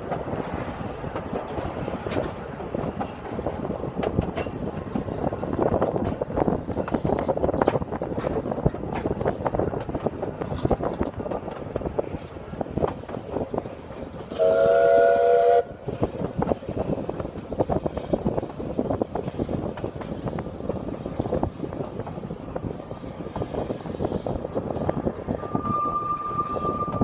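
Narrow gauge steam train heard from an open carriage window: a steady rumble with wheels clicking over the rail. About halfway through, the steam locomotive's whistle sounds once, a chord of several tones for about a second and a half. Near the end a thin, steady high tone.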